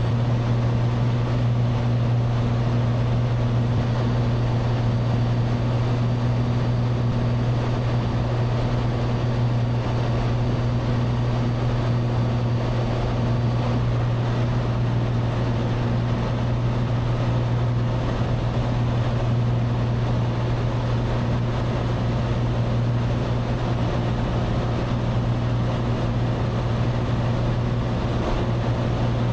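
Cessna 182's single piston engine and propeller running steadily in flight, a constant low drone heard inside the cabin.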